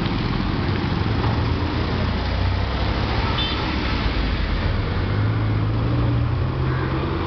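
Road traffic: a steady low rumble of truck, bus and motorbike engines with street noise, heavier in the second half, and a brief high-pitched tone about three and a half seconds in.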